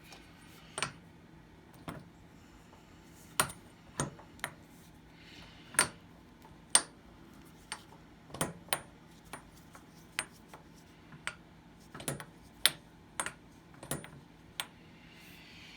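Irregular metallic clicks and knocks as the Pratt & Whitney Model B lathe's feed levers and gears are worked by hand, trying to get them fully engaged.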